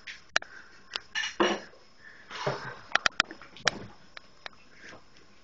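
Kitchenware being handled on a counter: a handful of sharp, irregular clinks and knocks of dishes and utensils, three in quick succession about three seconds in.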